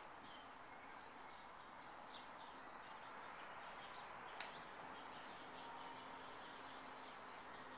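Faint chirping of small birds, many short chirps on and off, over a steady low hiss. One sharp click about four and a half seconds in.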